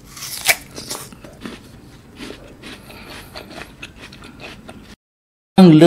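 A crisp bite into a red pear about half a second in, the loudest sound, followed by a run of quieter crunching chews of the firm, juicy flesh.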